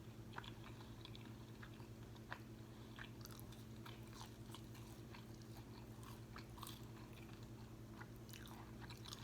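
Faint close-up chewing and biting of crispy fried food, with scattered small crunches and mouth clicks, over a low steady hum.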